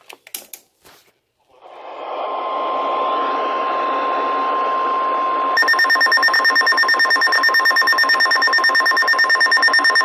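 A few handling clicks, then a weather radio's receiver hiss with the steady 1050 Hz NOAA Weather Radio warning alarm tone starting about two seconds in. About halfway through, a rapid, high, pulsing beep joins the tone: the alert alarm for a Severe Thunderstorm Warning.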